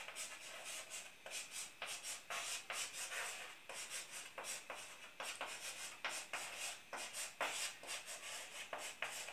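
Chalk writing on a blackboard: a run of faint, short scratching strokes, two or three a second, as a word is written out.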